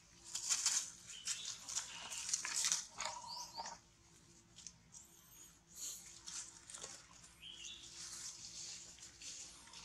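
Dry leaf litter rustling and crunching in irregular bursts as young macaques scuffle and wrestle on it, with a few short high chirps or squeaks.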